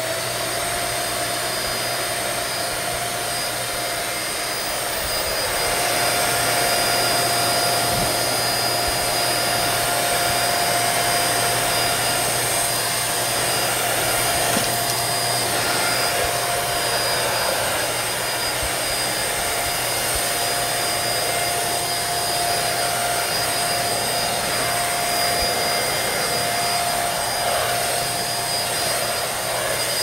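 Mondial Turbo Cycle 1100 W upright vacuum cleaner running steadily: a motor whine over rushing air as its nozzle is pushed across a tiled floor, getting slightly louder about six seconds in.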